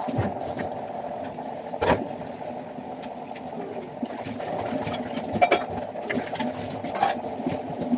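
Steady mechanical hum, like a small motor running, with a few sharp clicks and knocks over it.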